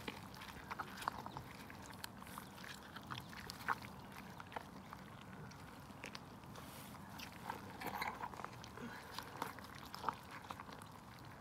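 Faint, irregular wet squelches and small clicks of gloved hands pulling a dead piglet's intestines out of its opened belly, one sharper click about four seconds in.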